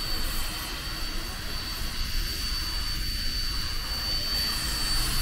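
Durango & Silverton K-36 steam locomotive No. 482 standing with steam up: a steady hiss with a constant high-pitched whine over a low rumble.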